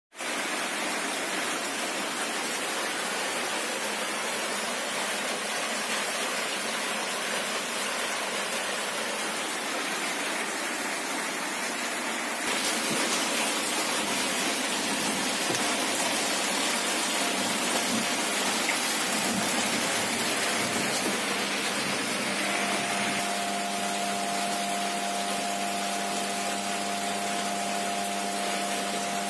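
Steady rushing noise like running water; about 22 seconds in, a steady motor hum joins it.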